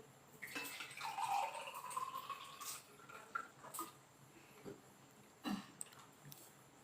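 Water being poured into a container, its pitch rising slowly as it fills for about two seconds, followed by a couple of light knocks.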